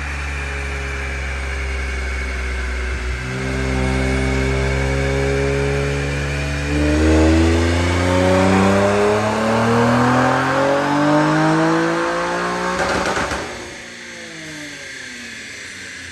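Infiniti Q50 Red Sport's VR30DDTT 3.0 L twin-turbo V6 through AAM Competition 3-inch resonated downpipes and catback exhaust, making a full-throttle dyno pull: the engine note holds steady, then climbs in pitch for about ten seconds. Near the end, the throttle closes with a short whoosh, typical of the blow-off valves venting, and the revs fall away as it coasts down.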